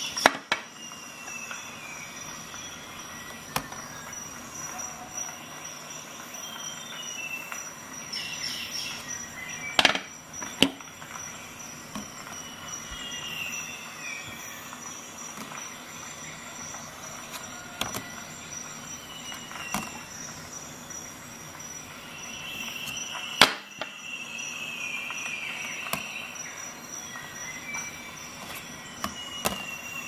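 A few sharp knocks and clicks of a steel multi-tool being set down on and lifted off a small digital scale's metal platform, the loudest about two thirds of the way in. Between them, a steady hiss and a thin high whine, with several faint high squealing tones that slide down in pitch.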